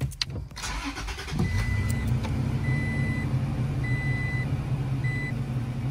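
Toyota Tacoma's engine starting about a second and a half in and settling into a steady idle, after a few clicks. The cabin's reverse-gear warning chime then beeps four times, about once a second, as the truck is put in reverse.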